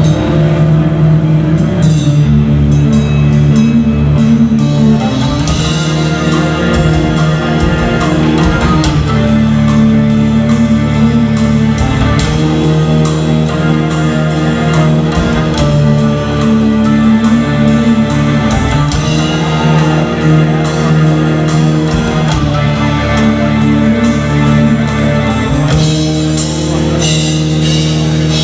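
Progressive metal band playing live: electric guitars, bass and drum kit, with heavy sustained chords shifting every couple of seconds.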